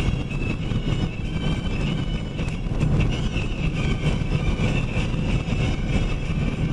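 Box truck driving on the road: a steady rumble of engine and tyre noise.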